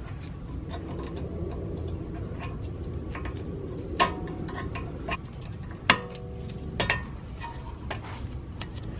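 Scattered light clicks and taps of metal being handled on a Saab 9-3 rear brake caliper, with two sharper metallic clinks about four and six seconds in, the second ringing briefly. A low steady background hum runs underneath.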